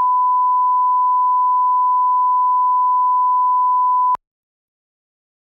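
Steady 1 kHz line-up test tone, the reference tone laid under broadcast colour bars, one pure unbroken pitch that cuts off abruptly about four seconds in.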